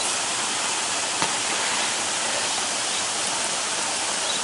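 Steady rushing of river water tumbling over a waterfall, with one small knock about a second in.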